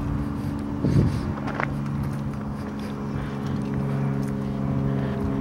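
Car engine humming steadily under road rumble as the car drives slowly; the engine note drops about a second in.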